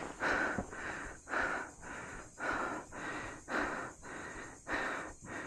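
A hiker breathing hard and fast close to the microphone, about two breaths a second in an even rhythm: panting from the exertion of the climb.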